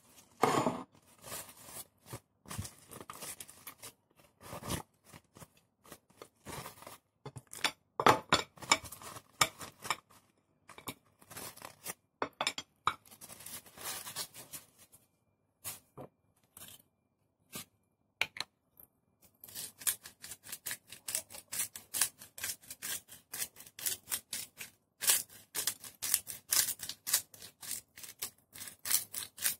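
Plastic wrap crinkling and hands handling a raw lamb joint on a plate, in irregular bursts with pauses. From about two-thirds of the way in, a hand-twisted seasoning grinder crunches over the meat in quick runs of sharp clicks.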